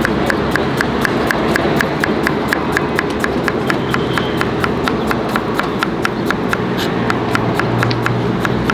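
Kitchen knife dicing cucumbers on a plastic cutting board: a quick, even run of blade knocks, about four a second.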